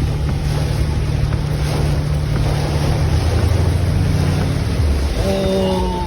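Strong wind rushing over the microphone with a deep, steady rumble underneath; a short pitched tone comes in near the end.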